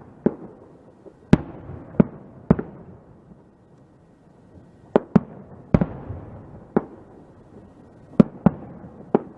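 Fireworks going off: about eleven sharp bangs at irregular intervals, each with a short echoing tail, with a lull of nearly two seconds near the middle.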